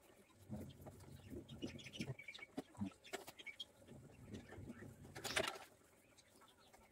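Quiet, scattered clicks and taps of hand tools working on a small single-cylinder engine, with a short hiss or scrape about five seconds in.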